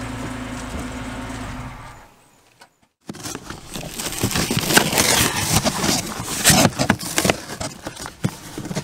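A minivan engine idling steadily, fading out about two seconds in. After a brief gap, a cardboard shipping box is torn open and pulled apart by hand: a busy run of tearing, crackling and scraping cardboard.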